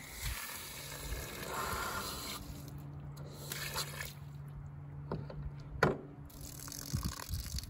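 Water rushing out of a newly installed Aquor frost-free house hydrant through a hose connector and short hose, in a long spurt and then a brief second one, as the hydrant is test-run for leaks. Then several sharp clicks and knocks from the connector and the hydrant's cover, the loudest about six seconds in.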